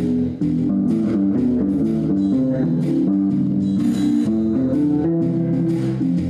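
Electric bass guitar (a Yamaha) played fingerstyle: a busy line of short plucked notes changing pitch several times a second.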